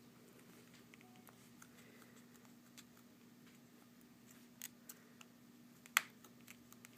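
Faint scattered clicks of a small screwdriver turning and seating in the tiny frame screws of an iPhone 4 as they are loosened, with one sharper click about six seconds in, over a low steady hum.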